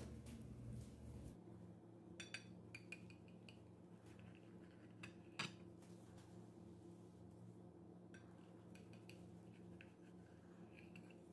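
Faint scattered clinks and taps of a ceramic plate and table knife being handled, the clearest about five seconds in, over a faint steady hum. Near the end the knife scrapes lightly as it cuts into the omelette on the plate.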